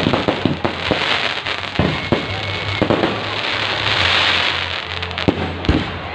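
Fireworks display: dense continuous crackling with sharp bangs scattered throughout, and music playing underneath.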